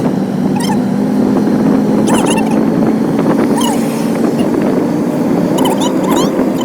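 Vehicle engine running steadily while driving, heard from on board, its pitch rising a little after about five seconds. Short high chirps sound every second or two over it.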